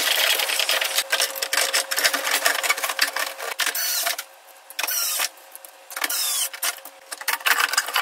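Plastic casing parts of a dehumidifier clattering and clicking as the cover is handled and fitted back on, in a dense run of small knocks and rattles, briefly easing off twice about halfway through.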